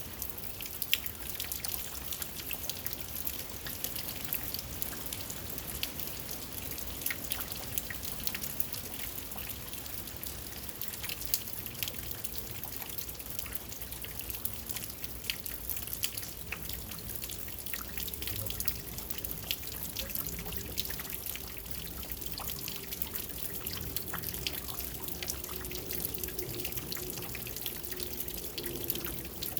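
Rain falling steadily: an even hiss with many separate drops ticking and dripping close by.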